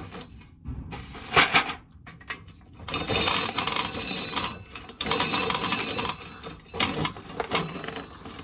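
Dried corn being shelled by hand, with kernels clicking and rattling off the cob into a container in two long stretches, each about a second and a half, with scattered clicks between.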